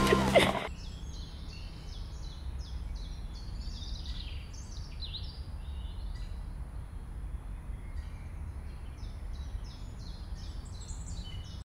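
Small birds chirping in quick repeated runs of short high notes, over a steady low rumble of outdoor background noise. Background music cuts off under a second in.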